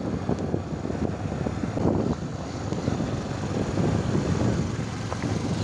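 Small motorcycle engines running at low speed on a dirt track, with wind buffeting the microphone as a low, uneven rumble.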